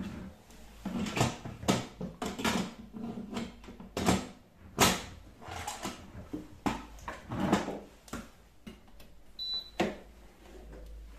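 Electric pressure cooker's lid being fitted, turned and locked into place: a string of plastic and metal clicks and knocks. Near the end, one short high beep from the control panel as the cooker powers on.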